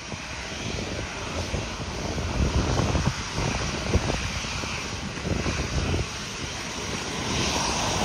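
Jet engines of a Copa Airlines Boeing 737 running as the airliner turns on the runway, growing steadily louder toward the end.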